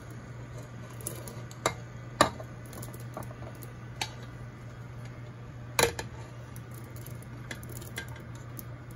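A plate and silicone spatula knocking against the rim of a metal cooking pot as small chhana dough balls are pushed off into it: four sharp knocks, the loudest about two seconds in and just before six seconds, with a few lighter ticks, over a steady low hum.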